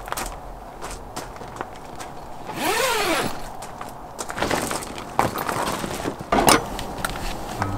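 Footsteps on gravel and the clicks and knocks of camping gear being handled in a tent, with a brief squeak that rises and falls in pitch about three seconds in.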